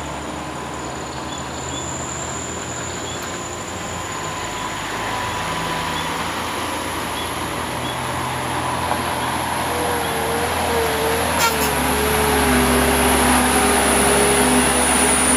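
Diesel engine of an Isuzu Elf truck labouring up a steep gravel incline. It grows steadily louder as the truck approaches and passes close by, with a wavering whine over the engine note in the last few seconds.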